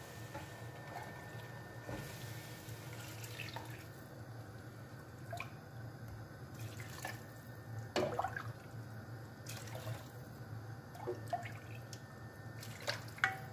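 Broth poured by the ladleful into a pot of fried vegetables and tomato paste, stirred with a wooden spatula, with the ladle and spatula knocking against the pot now and then. A low steady hum runs underneath.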